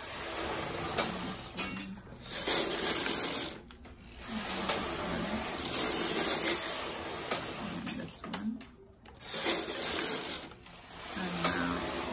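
Domestic flat-bed knitting machine carriage pushed back and forth across the metal needle bed, knitting rows with a rattling, clicking run on each pass. There are several passes with short pauses between them.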